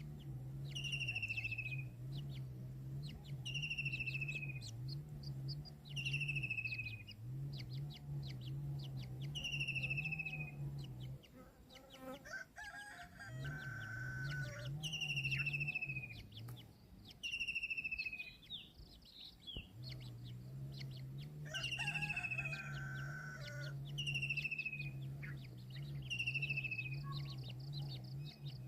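A bird calling over and over, a short whistled note falling in pitch about every two seconds, over a steady low hum. Twice, a longer, lower call cuts in.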